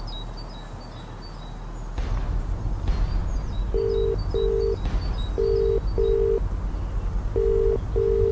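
Telephone ringback tone heard from the caller's end: a double ring repeating about every two seconds, three times, beginning about four seconds in. The call is ringing unanswered. A low steady rumble comes in about two seconds in, with faint bird chirps early on.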